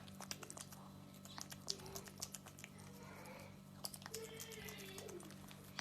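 A small animal crunching and chewing food: quick, irregular sharp clicks of teeth on something crisp, over a steady low hum.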